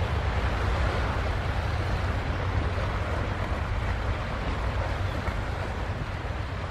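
Seaside ambience: a steady low rumble under a wash of wind and waves, easing slightly near the end.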